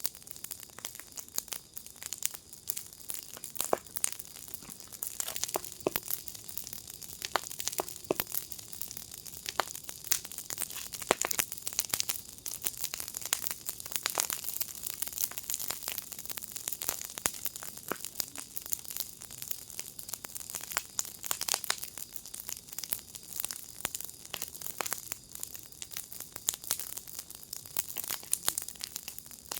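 Wood fire in a fire pit crackling steadily, with many small irregular snaps and pops over a soft high hiss.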